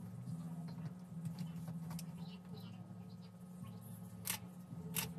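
Nikon D610 DSLR's newly fitted shutter test-fired: a sharp click about four seconds in and another near the end, after light scratchy handling sounds over a steady low hum.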